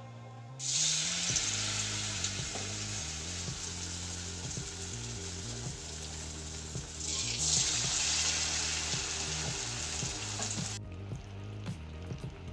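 Batter-coated susiyam balls deep-frying in hot oil in a kadai: a steady sizzle that starts about half a second in, grows louder about seven seconds in, and cuts off abruptly near the end.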